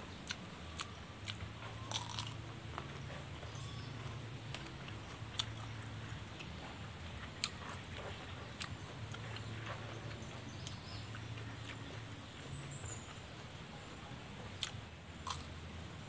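Close-miked mukbang eating: a person biting and chewing roasted fish and fresh vegetables, with scattered crisp crunches and clicks.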